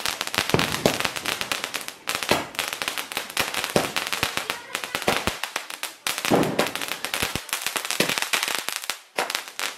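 Firecrackers going off in a rapid, dense crackle of sharp pops. The runs break off briefly about two, five and nine seconds in.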